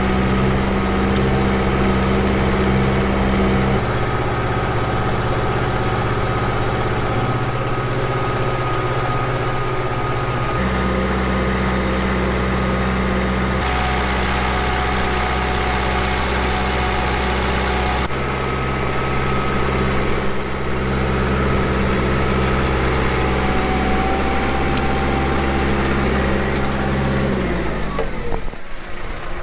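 Farm tractor's diesel engine running steadily from an open operator station with no cab, its tone changing abruptly several times. The engine sound drops away near the end.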